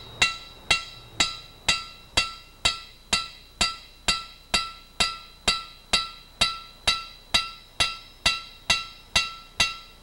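Hammer tapping on a broach seated in a spark plug thread insert in a Harley-Davidson Shovelhead cylinder head: about two evenly paced, ringing metallic taps a second. The taps expand the insert from the inside so it stays in the head, and it is tapped until it sounds right.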